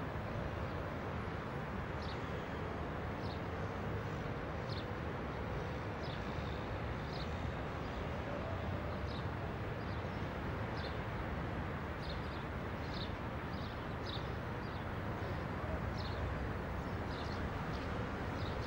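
Steady city traffic rumble, with a small bird giving short high chirps over it, roughly one a second.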